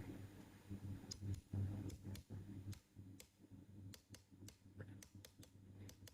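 Light, irregular clicks and ticks of small parts and hand tools being handled at a workbench, coming more often after about two and a half seconds, over a low steady hum.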